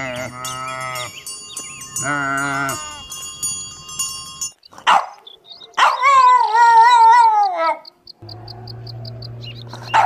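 Valais Blacknose sheep bleating, two calls in the first three seconds. A dog then gives a long howl about six seconds in, wavering in pitch for about two seconds, the loudest sound here.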